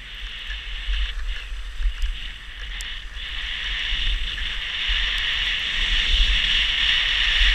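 Skis sliding and scraping over packed snow in a steady hiss that grows louder as the skier picks up speed, with wind buffeting the microphone underneath.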